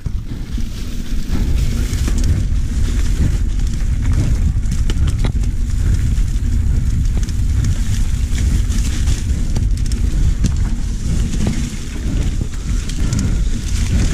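Mountain bike riding fast down a dirt singletrack: a steady rumble of tyres on the trail and wind buffeting the bike-mounted camera's microphone, with frequent small clicks and rattles from the bike.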